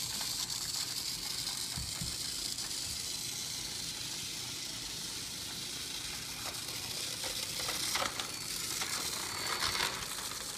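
Battery-powered GeoTrax toy car's motor and gears running as it drives along the plastic track: a steady hissing whir, with a few light clicks near the end.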